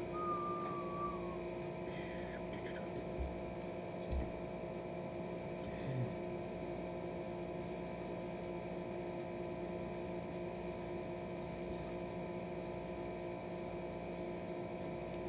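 Steady background hum made of several held tones, with a few faint clicks and mouth sounds of chewing in the first six seconds.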